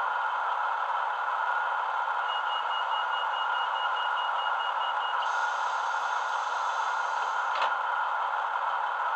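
DCC sound decoder in a model Class 156 Sprinter diesel unit playing the idling engine through a small speaker. About two seconds in, a rapid run of high beeps (the door warning) starts. About five seconds in it gives way to a hiss of air from the doors that ends with a thump.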